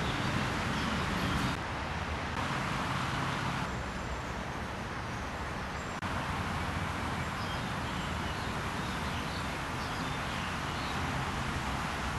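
Steady outdoor background noise, like distant city traffic, with a few faint bird chirps. The noise steps up slightly about halfway through.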